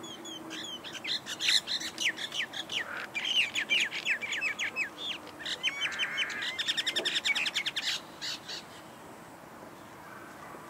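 Common myna calling: a fast series of short, falling whistled notes and chatter, which stops about eight seconds in.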